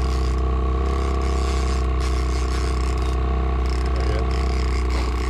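Boat motor running steadily with a low hum, and a trolling reel being cranked with a ratcheting, clicking mechanism as a hooked fish is reeled in against a heavily bent rod.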